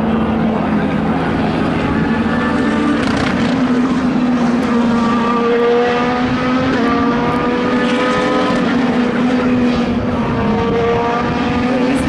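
IndyCar's 2.2-litre twin-turbo V6 at high revs on track, its pitch climbing through each gear and dropping back at upshifts every few seconds.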